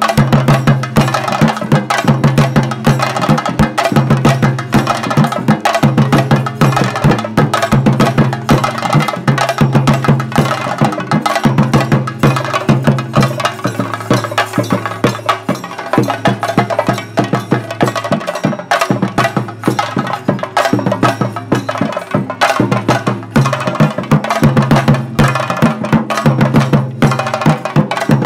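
Fast, loud drumming with sticks on chenda drums, the dense rhythm that accompanies a Theyyam ritual dance, with a steady low drone underneath.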